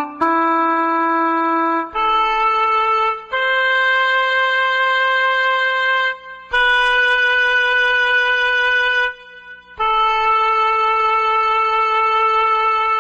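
A solo wind instrument plays a slow tune in long held notes, one at a time, each lasting a few seconds, with a short break about nine seconds in.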